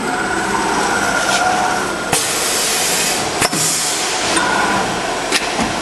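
CNC router automatic tool change on an HSD spindle: a whine of the axis drives as the spindle head moves to the tool rack. About two seconds in, a loud hiss of compressed air sets in as the tool is released, and there are two sharp clicks as the tool holders are let go and clamped.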